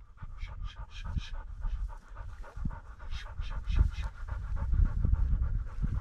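Bird dog panting rapidly, about four to five breaths a second, over a low rumble.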